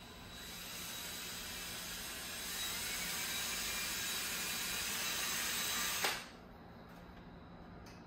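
Cordless drill running in reverse, spinning a speedometer cable to drive the odometer in a Buick Grand National instrument cluster as a bench test of the odometer. The drill runs steadily, picks up a little about two and a half seconds in, and stops with a click about six seconds in.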